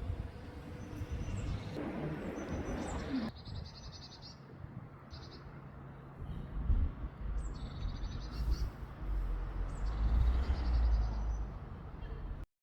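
A songbird singing a short, high, trilled phrase, repeated several times a few seconds apart, over a low rumble that grows loudest in the second half. The sound cuts off abruptly near the end.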